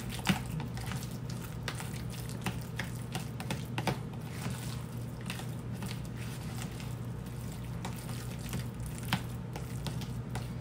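Metal spoon mashing and stirring avocado into creamy guacamole in a plastic container: wet squishing with irregular clicks of the spoon against the plastic, over a steady low hum.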